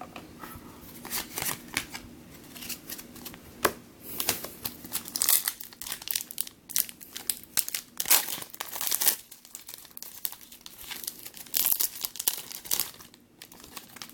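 Crinkling and tearing of a trading-card pack wrapper as a pack is ripped open and handled: irregular crackles and rips, with the loudest bursts about five, eight and twelve seconds in.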